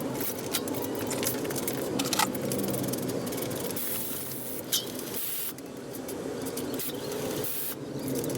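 Workshop handling sounds of tyre and wheel work: scattered sharp clicks and knocks, with a few short bursts of hiss about halfway through and near the end.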